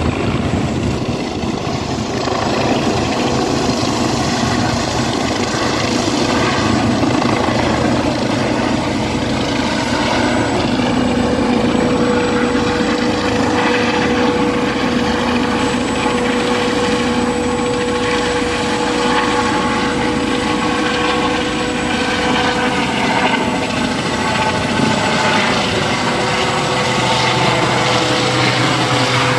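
Eurocopter EC135 air ambulance helicopter flying overhead just after take-off, with steady rotor and turbine noise and a whine that slides slightly down in pitch near the end as it draws away.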